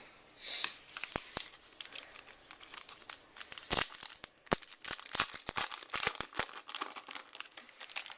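A plastic trading-card pack wrapper being crinkled and torn open by hand: a dense, irregular crackling with sharp ticks.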